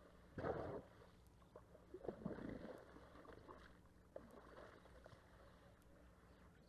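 African elephants feeding on grass and bushes: brief bursts of rustling and snapping vegetation, one about half a second in and a longer cluster of snaps and rustles around two seconds in, over a faint steady hum.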